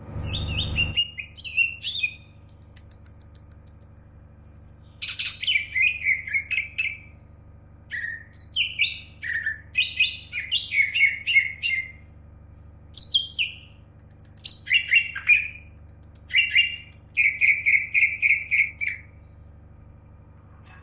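Cucak ijo (greater green leafbird) singing in bursts of rapid whistled phrases, many notes sliding downward, broken by pauses of a few seconds.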